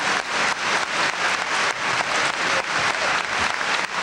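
Audience applauding: a steady, dense clatter of many hands clapping.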